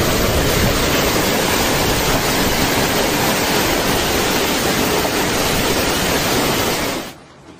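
Heavy rain and hail pelting down on the street, cars and balcony, a loud, steady rush of noise that stops abruptly near the end.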